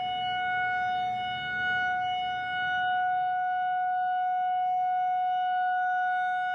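Steady buzzy electronic tone held at one unchanging pitch, the background tone of a mock emergency alert broadcast, with a faint low hum beneath it that fades about three seconds in.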